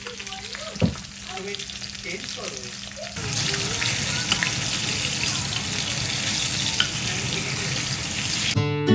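Salmon steaks sizzling in hot mustard oil in a frying pan while a spatula turns them. The sizzle is faint at first and grows loud and steady from about three seconds in, and guitar music starts right at the end.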